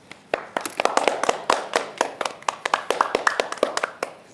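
A small group of people clapping by hand, in quick, uneven claps that start just after the beginning and thin out near the end, with voices faintly underneath.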